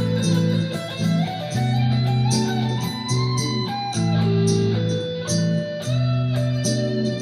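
Electric guitar played through a Roland GR-55 guitar synthesizer: a melodic line over held low notes and chords, with a steady ticking beat about three times a second.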